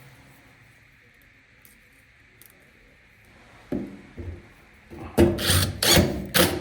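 Dryer parts being handled during reassembly: a couple of short knocks, then several loud scraping rubs in the last second and a half.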